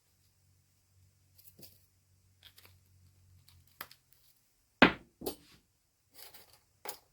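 Hands handling small hard plastic pieces of an action figure: scattered light clicks and rustles, a sharp knock about five seconds in, and two smaller knocks after it.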